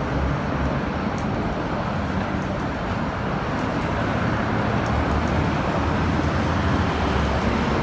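City street ambience: steady road traffic, an even rumble and hiss.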